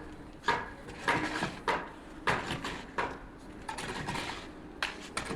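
A series of sharp clattering knocks with a short ring, about one every half second, then a pause and two more near the end.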